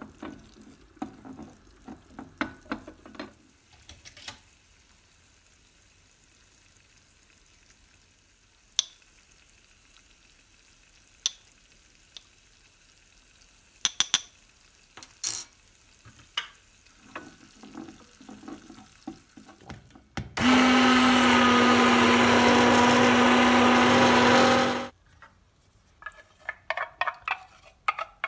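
Small kitchen clicks and knocks, then an electric blender runs at one steady speed for about four and a half seconds with a steady hum, and cuts off suddenly. After it stops, the kitchen clatter resumes.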